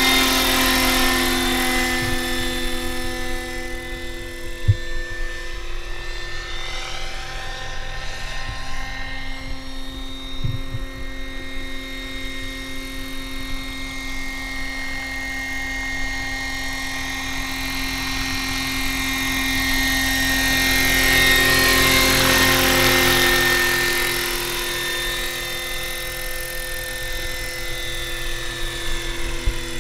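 A large electric-powered RC model helicopter, a 1:7 scale Bell 230 on a 12S electric conversion, in flight: a steady whine of the drive with rotor noise. It grows louder about two-thirds of the way through as the model comes closer, then eases off again.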